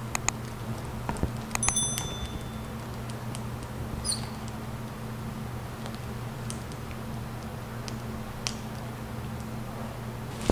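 Sausage casing filling with ground meat off a grinder's stuffing tube: scattered small wet clicks and a few brief high squeaks, the loudest in the first two seconds and again at about four seconds, over a steady low hum.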